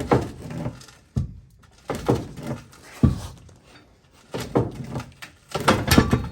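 Heavy metal clunks and knocks, about six at irregular intervals, each with a short ring, from steel truck suspension parts being handled or struck.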